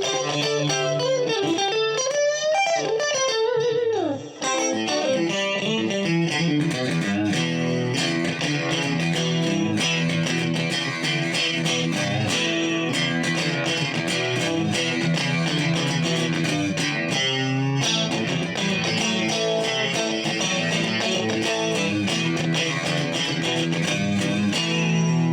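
Morgan Legend Series Strat-style electric guitar with an ash body and rosewood fingerboard, played on a clean tone. The first few seconds have bent notes with wide vibrato; after a short break it plays a busy stream of picked notes over ringing lower notes.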